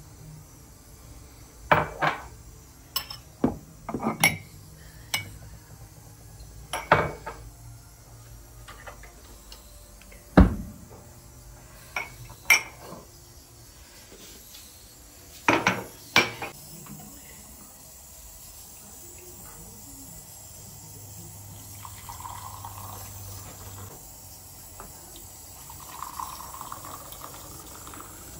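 Ceramic mugs clinking and knocking as they are lifted out of a cupboard and set down, about a dozen sharp clinks in the first half. Near the end, green tea is poured through a metal strainer into the mugs, a soft trickle twice.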